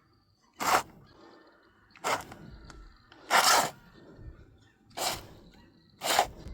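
Repeated hard blows of a hand tool breaking into a floor to reach a leaking PB water pipe, about one blow every second and a half, each a short crack-and-scrape.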